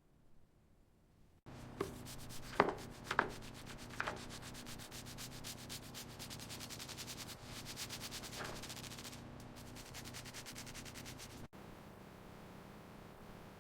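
Fast, steady rubbing or scraping, like sanding or brushing a surface, over a low hum. It starts suddenly about a second and a half in and stops suddenly near the end, with a few sharp squeaks in its first few seconds and one more midway.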